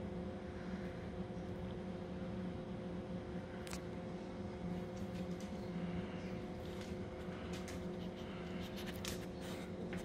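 120 mm high-speed cooling fan in the lid of a bucket ice air cooler, running steadily: a whirring rush of air with a low hum and several steady tones. A few light clicks come through the middle.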